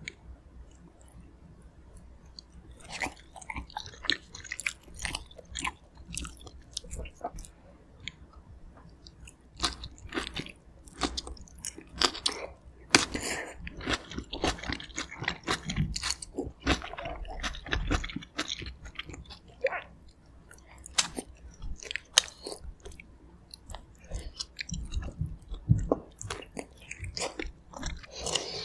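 Close-miked chewing and biting of stewed pork and aged kimchi from kimchi gamjatang: many short, irregular mouth sounds, sparse at first and denser and louder from about ten seconds in.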